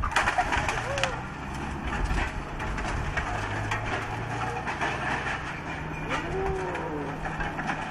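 Demolition excavator working a grab on a house's timber roof: its engine runs steadily under irregular cracking and crunching of breaking wood and debris, densest about the first second.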